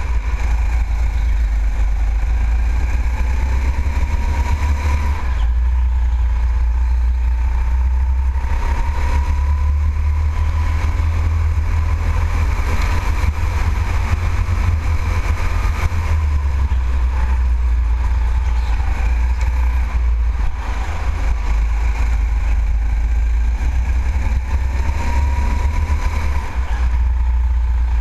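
Go-kart running at race pace, heard from a camera mounted on the kart: a heavy low rumble and a whine that rises and falls over and over as the kart speeds up on straights and slows for corners.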